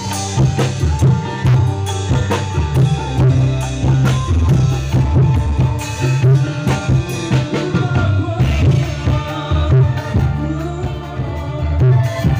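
Live band music played through a PA sound system: drum kit with bass drum hits keeping a steady beat, a strong bass line, and guitars and keyboards over it.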